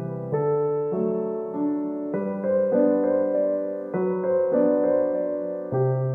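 Background music: a soft keyboard tune of held notes and chords, changing every second or so.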